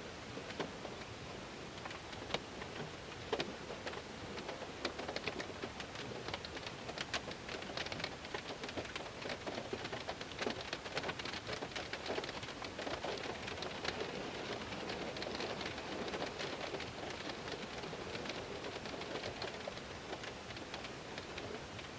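Heavy rain falling on a car's window: a steady hiss of rain with many sharp individual drop impacts, at its densest around the middle.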